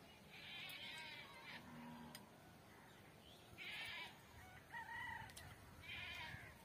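Faint calls of farm animals, short trembling calls about half a second long repeating every couple of seconds, with a few light clicks.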